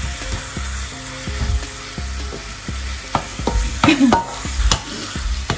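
Raw minced meat sizzling as it is stirred and broken up with a plastic spatula in a nonstick pan of fried onions and masala, with scattered taps and scrapes of the spatula against the pan.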